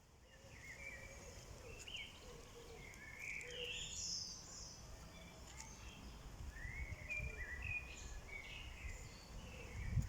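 Songbirds singing: many short chirps and warbled phrases, one after another, over a steady low background rumble.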